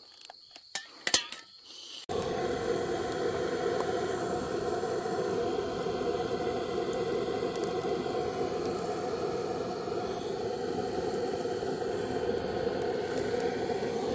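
Handheld gas torch on a butane canister. After a few clicks it lights suddenly about two seconds in, then burns with a steady hiss as its flame is held on charcoal to light it.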